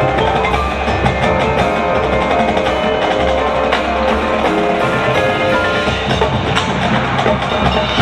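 Marching band playing: wind instruments holding sustained chords over a steady stream of percussion strikes from drums and front-ensemble instruments.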